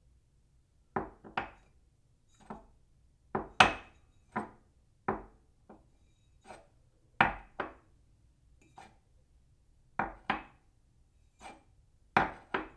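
A cup set down on a saucer again and again: short sharp clinks and knocks, often in quick pairs, each with a brief ringing tail, about a dozen over the stretch with pauses between.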